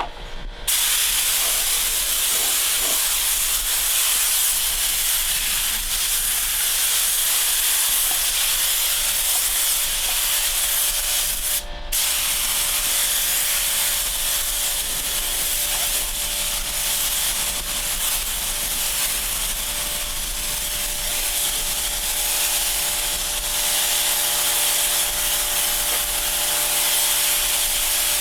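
A sprayer nozzle hisses steadily as form release agent is sprayed onto a concrete form. The spray breaks off briefly about twelve seconds in.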